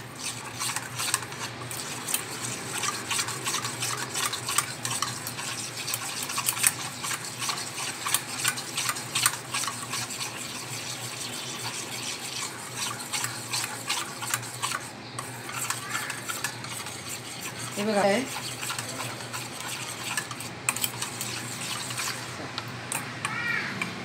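Metal wire whisk beating gram-flour batter in a stainless steel bowl, the wires scraping and ticking rapidly and irregularly against the bowl as the batter is mixed smooth.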